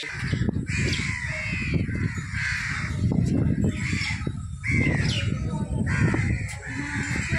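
Crows cawing repeatedly, about one harsh call a second, over a steady low rumble.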